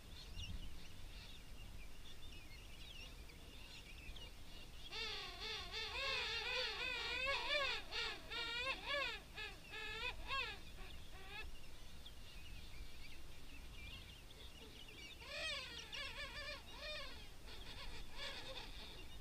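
King penguin colony calling: many overlapping warbling trumpet calls that waver up and down in pitch. There is a loud stretch of calling from about five to eleven seconds in, and another from about fifteen to seventeen seconds, with fainter calls between.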